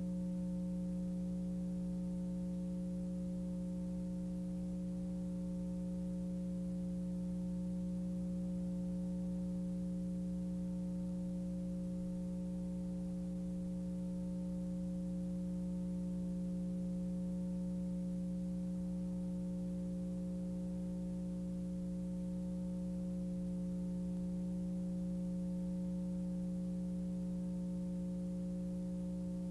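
Steady electrical mains hum from the VHS tape transfer, unchanging, with no music or speech over it.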